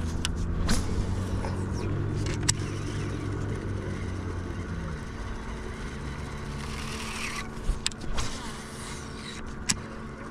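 Steady low electric hum of a bass boat's trolling motor, easing off about halfway through, with a few sharp clicks from the rod and baitcasting reel being handled.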